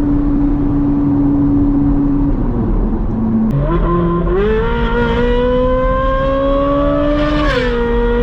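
Ferrari 458 Spider's V8 through a Brilliant aftermarket exhaust, holding a steady note for about two seconds, then after a gear change revving in a long rising climb under acceleration, and dropping with an upshift near the end.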